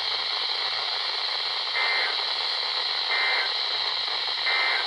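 Weather radio static hissing steadily, with three short warbling data bursts of EAS/SAME digital tones about 1.3 s apart. Bursts this short are the end-of-message code that closes an alert.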